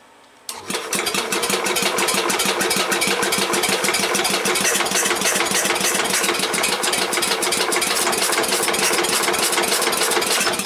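Cast-iron Briggs & Stratton single-cylinder engine being cranked by its starter-generator, choked and primed, turning over with a fast, even chugging over the starter's steady hum, without firing. It begins about half a second in and stops near the end.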